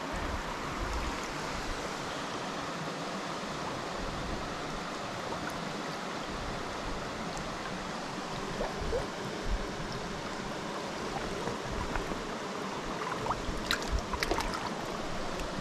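Small mountain creek flowing steadily over rocks. Near the end there are a few short splashes as a hand dips into the water to release a fish.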